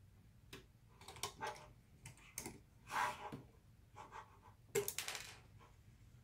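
Irregular small plastic clicks, taps and scrapes of a graphics card's cooling fan and plastic shroud being handled and worked loose by hand.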